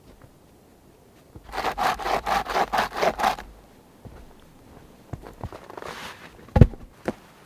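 Hand saw cutting wood in quick back-and-forth strokes, about five a second, for some two seconds. It is followed by a few light knocks and one sharper thump near the end.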